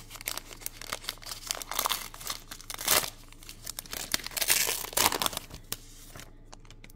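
Wrapper of a 2023 Topps Big League Baseball trading-card pack being torn open and crinkled by hand: a run of crackling rips and rustles, loudest in the middle, that dies away about a second before the end.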